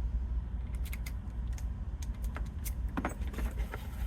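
Light, scattered metallic clicks and taps of keys being handled against a freshly rekeyed Kwikset lock cylinder, with a sharper click about three seconds in, over a steady low hum.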